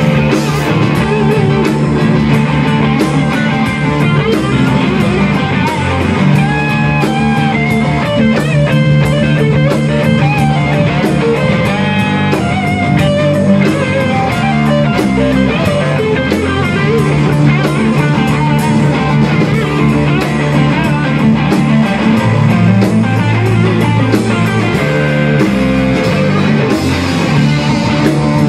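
Live rock band playing an instrumental passage: a lead electric guitar line over a second electric guitar and a Tama drum kit.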